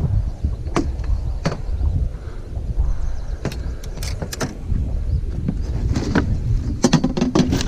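Wind rumbling on the microphone, with scattered sharp knocks and rattles as a landing net holding a northern pike is swung aboard a small boat and the fish is handled in the mesh. A quick run of knocks comes near the end.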